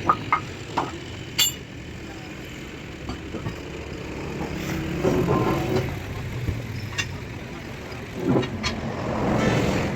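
Short sharp metallic clinks and knocks of tools on metal parts, several in quick succession in the first second and a half and a few more later, over a steady low background rumble.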